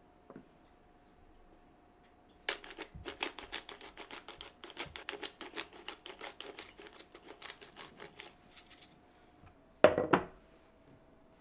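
A hand-twisted pepper grinder cracking peppercorns: a dense run of rapid crunchy clicks for about six seconds. Near the end, a white ceramic dish is set down on the countertop with a short double clack.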